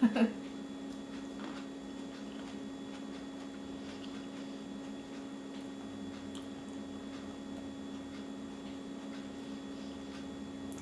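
Faint, wet chewing of fresh fruit with a few soft scattered ticks, over a steady low background hum.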